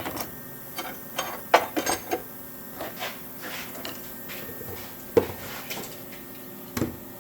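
Metal clanking and clinking as metal pieces and tools are handled and set down on a metal table: a few sharp knocks with lighter clinks between, over a faint steady hum.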